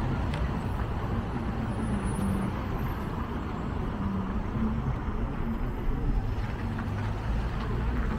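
Steady low rumble of motor traffic, with no single sound standing out.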